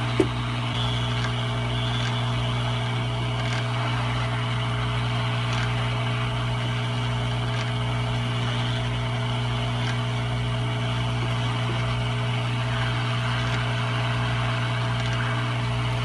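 Hot air rework station blowing steadily, a low hum with an airy hiss, as it heats the solder on small surface-mount resistors to lift and move them.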